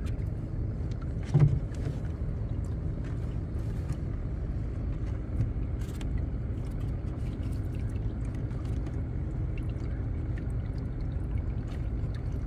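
A small fishing boat's engine running steadily with a low drone. There is one thud about a second and a half in.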